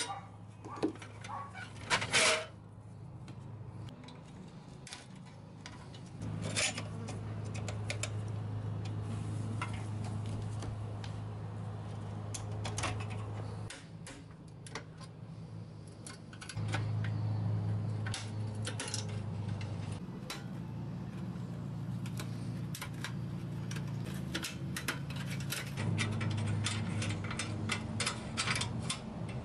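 A screwdriver clicking and scraping against the pressed-steel parts of a toy truck as a clip and pin are pried off a hoist lever. Sharp metallic clicks and short scrapes come irregularly over a steady low hum.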